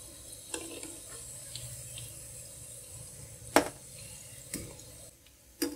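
Ring samosas deep-frying in oil kept on a slow flame: a steady, gentle bubbling hiss. Twice, about three and a half and four and a half seconds in, there is a sharp click from the slotted metal spoon as the samosas are turned.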